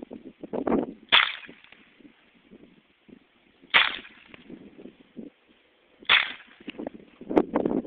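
Three shots from a Sig Sauer Mosquito .22 LR pistol, about two and a half seconds apart, muffled in sound by the cut-off upload, with quieter knocks in between.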